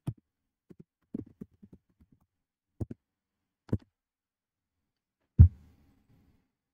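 Computer keyboard keystrokes: a scattered handful of short taps, then one heavier key strike about five and a half seconds in as the typed command is entered.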